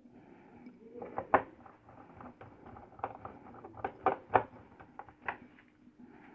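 Irregular light clicks and knocks of hard objects being handled, with two sharper knocks, one about a second and a half in and one about four seconds in.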